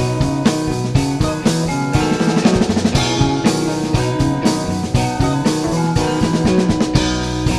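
Live rock band playing an instrumental passage of the song with no singing. The drum kit is prominent, with many sharp hits over bass and other pitched instruments, and a sustained low bass note comes in near the end.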